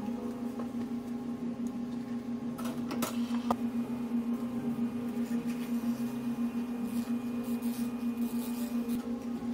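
Steady low mechanical hum from cafe equipment, with a sharp clink of a cup or glass about three seconds in and light handling sounds of drink-making.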